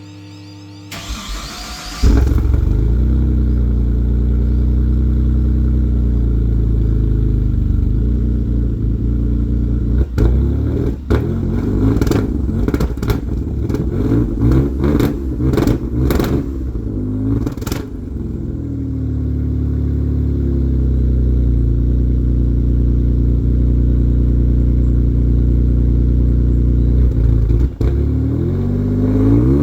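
GTO's V8 cranking and catching about two seconds in, then idling through Varex valved mufflers. In the middle it is given a series of quick throttle blips, settles back to a steady idle, and is revved once more near the end.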